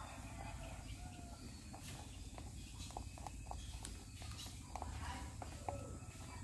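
Rabbits crunching pellet feed from a clay bowl: a run of small, sharp, irregular clicks, thickest in the middle and again near the end, over a steady low hum.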